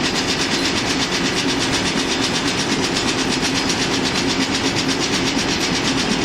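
Hesston 5800 round baler running steadily behind its tractor, a fast, even mechanical clatter over a steady engine hum.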